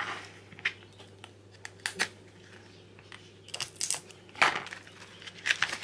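A small plastic bag of rhinestones crinkling with scattered light clicks as it is handled, then a cluster of snips and crinkling in the second half as small scissors cut the bag open.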